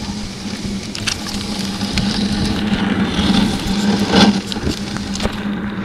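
Dog sled gliding over a packed snow trail: steady scraping of the runners on the snow with frequent clicks and knocks from the sled's frame, and a louder scrape about four seconds in.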